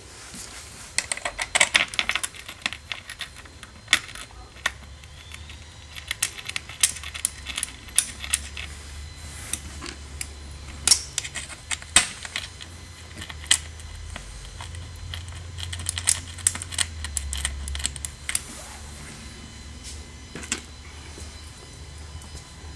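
Irregular metallic clicks and clinks of small seat-mounting hardware, quarter-20 bolts and washers, being handled and started by hand on a golf cart's seat frame, with the frame and wire basket rattling. The clicks come in a busy cluster about a second in and again in the middle.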